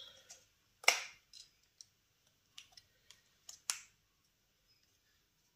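A GoPro HERO10 Black's battery being inserted: a series of short plastic clicks, the sharpest about a second in and just before four seconds, with fainter clicks between.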